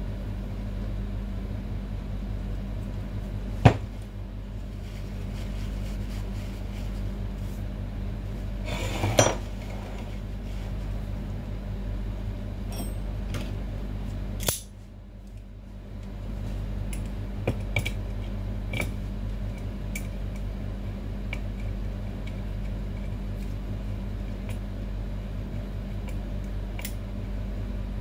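Metal parts of a barber chair's hydraulic lift cylinder being handled and knocked about on a metal workbench: one sharp metal knock about four seconds in, a short rattle of clinks around nine seconds, and scattered light clinks later, over a steady hum.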